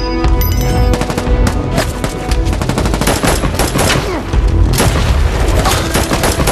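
Gunfire in a shootout: many rifle shots in quick, irregular succession, with bullets striking the concrete pillar being used as cover.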